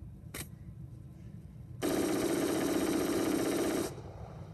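AR-15 rifle firing one sustained rapid-fire burst of about two seconds, a continuous string of shots that starts abruptly and cuts off suddenly, as if the magazine is emptied.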